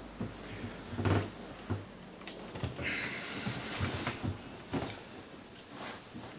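Duvet and clothing rustling as someone sits up in bed, with a few soft knocks and thumps; the loudest thump comes about a second in, and a longer rustle about halfway through.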